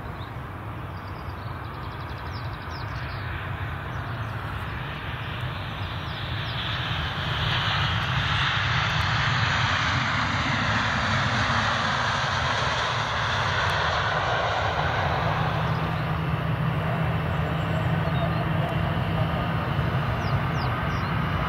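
Airliner's engines running, growing steadily louder over the first eight seconds or so and then staying loud as the aircraft goes by, with a sweeping whoosh through the middle.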